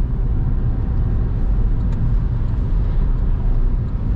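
Steady low rumble of a car on the move: engine and tyre noise on the road.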